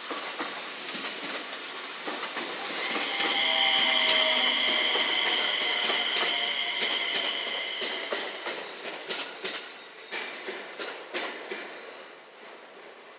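JR West 227 series electric train passing close by: wheels clicking rhythmically over the rail joints, with a steady high squeal for several seconds in the middle of the pass. The sound is loudest a few seconds in and then fades as the train draws away, the clicks thinning out near the end.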